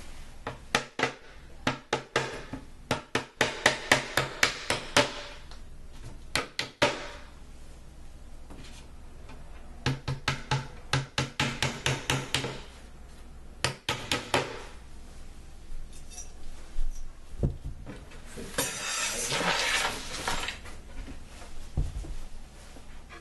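Claw hammer tapping small nails into a wooden drawer frame in quick runs of light blows, three bursts of them, the blows getting harder within each run. Near the end comes a brief rattle of small loose metal parts.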